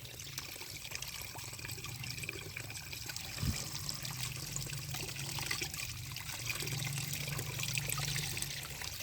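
Water running and trickling steadily over muddy toy vehicles as they are rinsed clean, with a low steady hum underneath.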